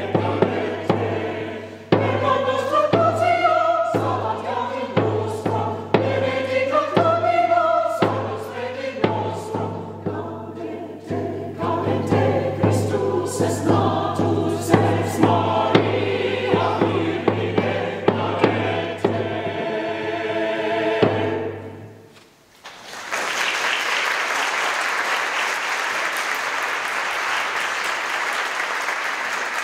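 Mixed choir singing a Christmas carol, with the final chord cut off about 22 seconds in. After a brief pause the audience applauds.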